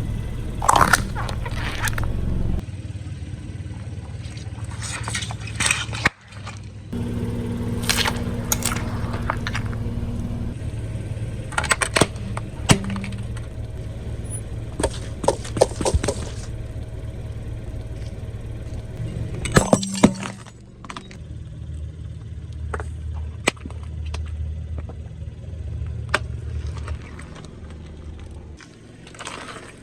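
Car tyres rolling over and crushing brittle objects: a run of sharp cracks and crunches, in clusters, over the steady low rumble of the car.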